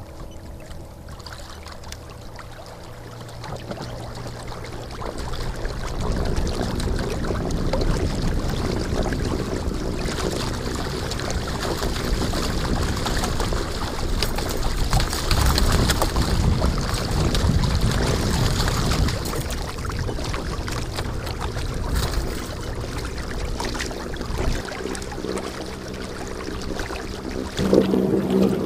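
A small boat under way on a lake: water rushing and splashing along the hull with a low rumble, swelling over the first few seconds and then staying steady.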